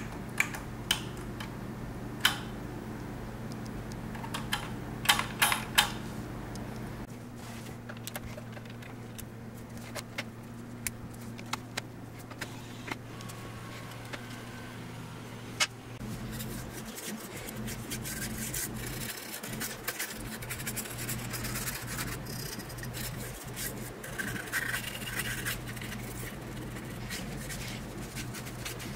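Hands working on a Yamaha RX-495 stereo receiver: a handful of sharp clicks in the first six seconds from its half-broken power button being pressed, then quieter clicks, scraping and rubbing as the metal chassis is handled and its front panel worked with a small tool. A steady low hum lies underneath throughout.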